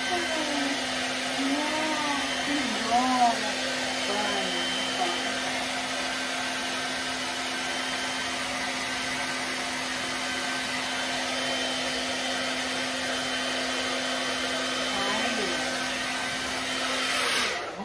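Handheld electric hair dryer running steadily, blowing warm air onto a damp dog's fur: an even rush of air with a steady low hum. It is switched off just before the end.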